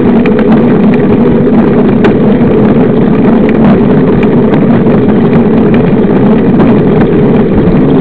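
Riding noise from a camera mounted on a 29-inch mountain bike rolling fast on asphalt. There is a loud, steady droning hum with rumble, and scattered rattling clicks from the bike and camera mount.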